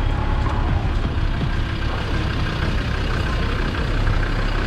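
Wind buffeting the microphone, an uneven low rumble over a steady rushing hiss.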